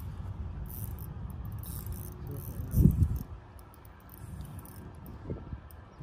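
Daiwa Exist spinning reel's drag giving line in short, high-pitched buzzes as a hooked fish pulls, over a steady rumble of wind on the microphone. A low thump about three seconds in.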